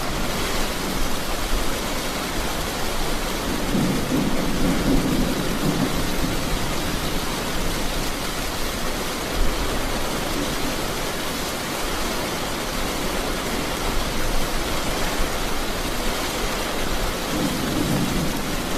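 Steady rain falling, with two low rolls of thunder: one about four seconds in, lasting a couple of seconds, and another starting near the end.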